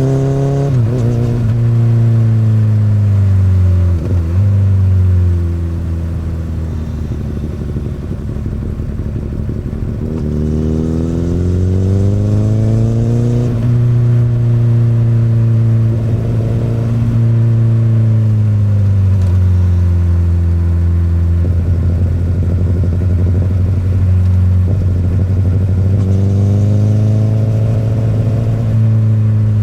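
2008 Honda CBR1000RR (SC59) inline-four through an Akrapovic exhaust, under way. The revs dip sharply twice in the first few seconds, climb again about ten seconds in, then sink slowly, rising once more near the end, with a rougher, lower note in the low-rev stretches.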